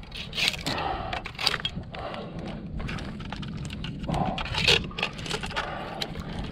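Irregular scrapes, cracks and small snaps of ash branches and twigs as a climbing arborist moves and works among them in the tree.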